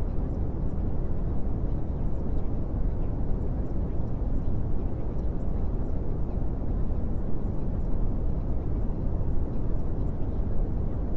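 A steady, deep rumbling noise with no rhythm and no rise or fall.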